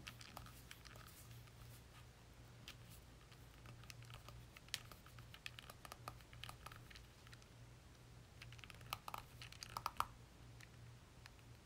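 Faint, scattered clicks and light handling noises from a TWSBI Mini fountain pen being worked in the hands while it is filled with ink, with a couple of sharper clicks near the end, over a low steady hum.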